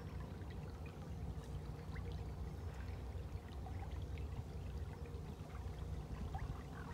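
Water burbling and lapping along the bow of a narrowboat under way, over a low steady rumble.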